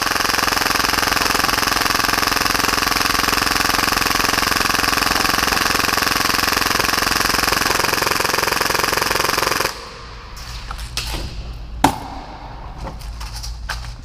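Tokyo Marui Hi-Capa airsoft pistol firing a long unbroken full-auto burst at about 30 rounds a second, stopping abruptly about ten seconds in, followed by a few separate sharp clicks. The pistol no longer fires single shots when semi-auto is tried.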